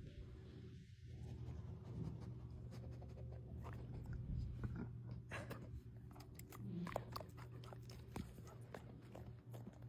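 Faint sounds of a dog: scattered light clicks and ticks over a low steady hum, the clicks growing more frequent about halfway through.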